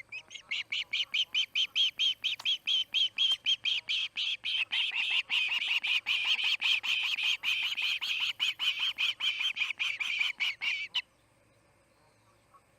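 Osprey screaming: a fast, unbroken series of shrill call notes, about four a second, that stops abruptly about eleven seconds in.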